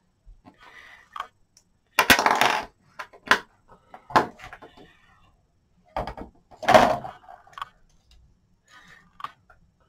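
Plastic model-kit sprues (parts trees) rattling and clattering as they are handled and laid on a table, in several short bursts. The loudest come about two seconds in and again around seven seconds.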